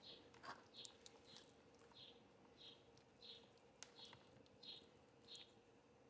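Near silence: a faint room hum with a faint high chirp repeating about three times every two seconds, and a couple of faint clicks.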